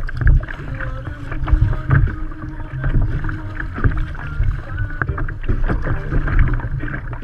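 Kayak paddle strokes and water splashing and slapping against a plastic fishing kayak's hull in choppy sea, with wind rumbling on the microphone.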